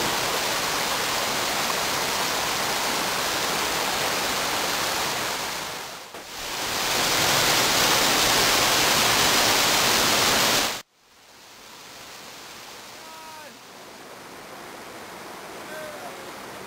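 Rushing water over rocks: a creek runs steadily, then a louder waterfall comes in from about six seconds. Near eleven seconds it cuts off abruptly to the quieter rush of a river rapid, with a few faint short chirps.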